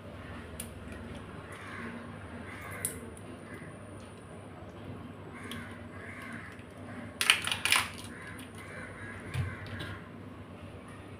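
Raw crab shells and legs snapping and clattering under the hands, with a burst of sharp cracks about seven seconds in. A bird calls repeatedly in the background.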